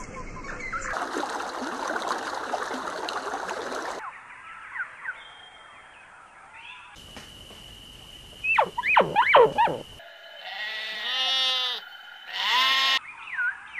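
Sheep bleating twice near the end, a long wavering bleat followed by a shorter one. Before that, a few loud quick sweeping calls and, at the start, an even noisy hiss.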